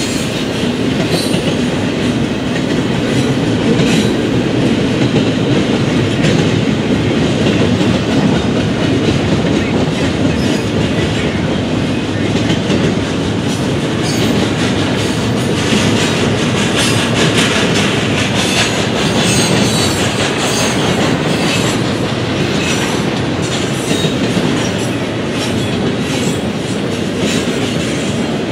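Double-stack container well cars of a Norfolk Southern intermodal freight train rolling past: a steady noise of steel wheels on rail, with repeated light clicks as the wheels cross the rail joints.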